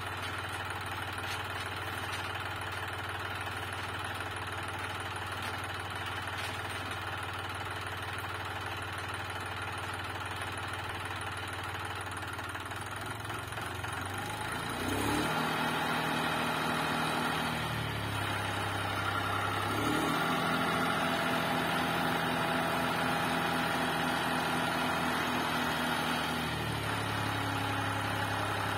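Green-and-yellow John Deere tractor's diesel engine idling steadily, then raised to higher revs about halfway through, easing off briefly, revving up again and settling back to idle near the end.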